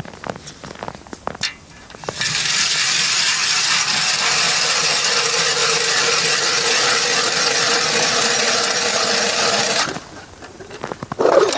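A few footsteps on snow-covered ice, then a hand ice auger drilling into river ice: about eight seconds of steady grinding scrape with a constant hum through it, which stops suddenly. A few knocks follow, with a louder one near the end.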